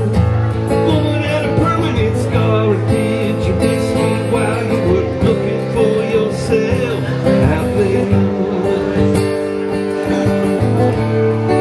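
A man singing with his own strummed acoustic guitar in a solo live performance. The singing wavers over the steady guitar chords and eases near the end, leaving mostly guitar.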